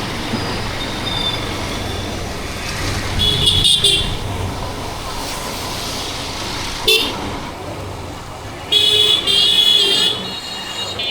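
A motorcycle running at road speed under a helmet camera, with steady engine and road noise. A vehicle horn honks three times: once about three seconds in, briefly near seven seconds, and longest near nine seconds.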